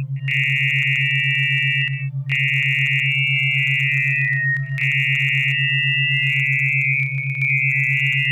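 Synthesized electronic tones: a low tone pulsing about five times a second under a high, wavering sine-like tone that breaks off briefly near two seconds in.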